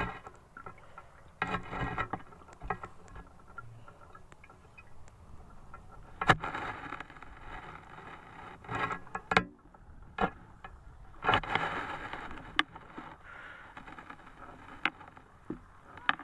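Lake water sloshing and splashing close by in irregular surges, with a few sharp knocks.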